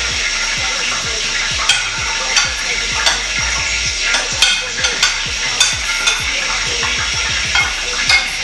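A spoon clicking and scraping against a bowl as seasoning is worked into raw fish. The clicks are irregular, about one or two a second, starting a couple of seconds in, over a steady hiss.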